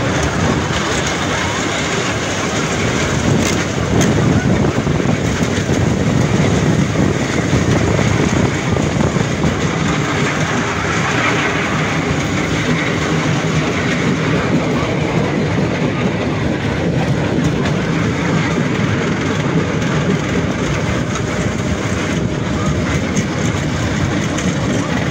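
Miniature ride-on train running along its narrow-gauge track, a steady noise of wheels on rails heard from on board.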